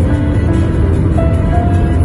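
Steady low rumble of a car driving, the road and engine noise loud and constant, with a few held music notes faintly over it.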